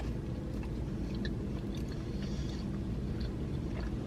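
A person chewing food close to the microphone, with faint scattered mouth clicks over a steady low background hum.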